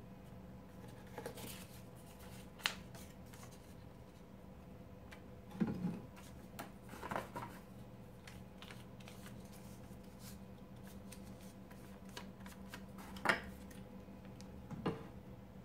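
Hands handling paper cut-outs and a wooden picture frame during decoupage: a few scattered light taps, clicks and paper rustles. A duller knock about six seconds in comes as the frame is set down on the wooden table. A faint steady hum runs underneath.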